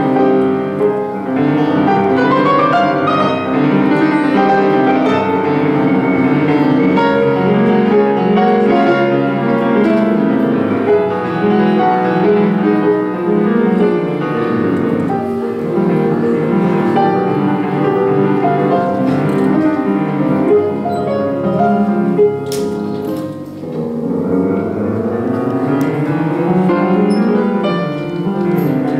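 Solo Yamaha grand piano played live: a fast, dense classical piece with continuous runs, sweeping up and down in the last few seconds.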